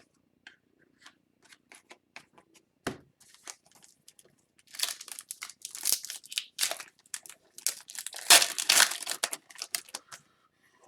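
Foil wrapper of a hockey card pack being torn open and crinkled, in a dense crackling stretch of several seconds. Before it come a few light clicks and a single thump.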